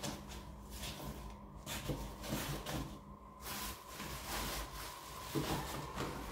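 Paper bag and cardboard boxes rustling and knocking lightly as they are picked up and moved, over a faint steady hum.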